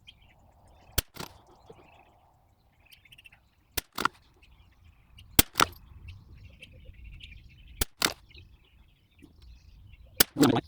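Five sharp .22 LR rifle shots from an Anschutz 1761, spaced about one to two and a half seconds apart. Each has a second crack a moment after it. Birds chirp faintly in between.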